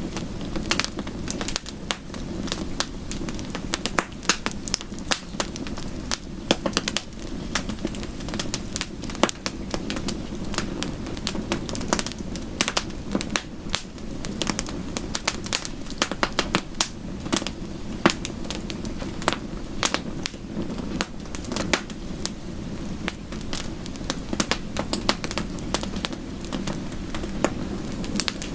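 Wood fire crackling, with frequent irregular sharp pops and snaps over a steady low hiss.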